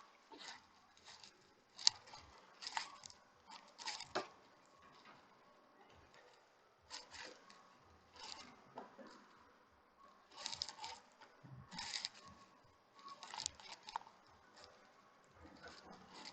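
Faint, irregular scraping and ticking of small hand tools working on the inside of an opened smartwatch, in short strokes with pauses between them.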